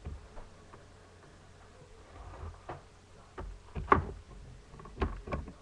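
A few irregular knocks and clicks, the loudest about four seconds in.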